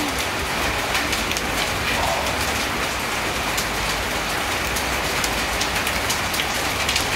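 Heavy rain from a hailstorm falling steadily on tile roofs, with many sharp ticks of close impacts.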